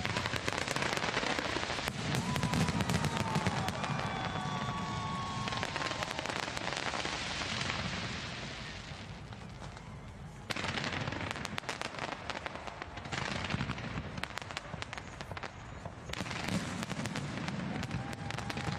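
Fireworks display going off: dense crackling and popping with deep booms from the shell bursts. The noise eases for a moment about nine seconds in, then comes back abruptly.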